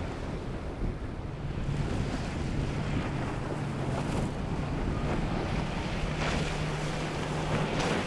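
Powerboat running at speed through choppy water: a steady low engine drone over splashing spray and waves, with wind buffeting the microphone.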